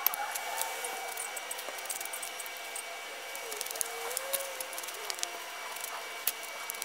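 Scattered small crackles and ticks of loose soil and dry grass as a spade fills in and covers a water-filled hole in the ground.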